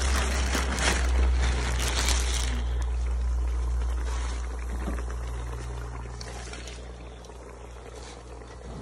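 Cooked crawfish poured from a plastic bag into a pot of sauce: a dense rattling clatter of shells for the first two and a half seconds, thinning to scattered clicks and rustling that fade away. A steady low rumble runs underneath.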